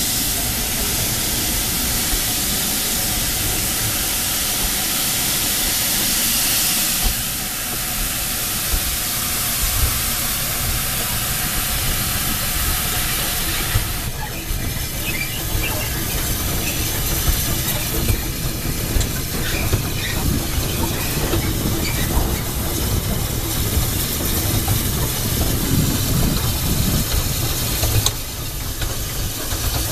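Narrow-gauge steam locomotive heard close up at its smokebox front: a strong hiss of steam at first, then the steady running noise of the engine working along the line.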